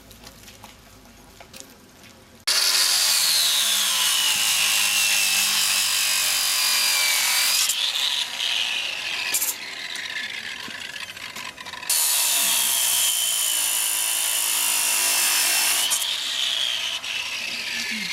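Corded electric angle grinder cutting metal at a steel gate, where a protester is locked on. It starts about two and a half seconds in, and its whine drops slowly in pitch as the disc bites. It eases off in the middle, then makes a second long cut before tailing off near the end.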